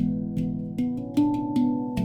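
Stainless steel handpan in a 13-note A major (Saraswati) scale, played by hand. About five notes are struck at an even pace, each ringing on so that the notes overlap.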